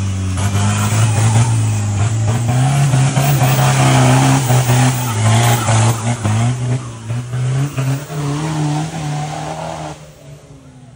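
Off-road Toyota Hilux engine revving hard under load, its pitch rising and falling as the throttle is worked, over a hiss of tyre and mud noise. The engine drops back near the end.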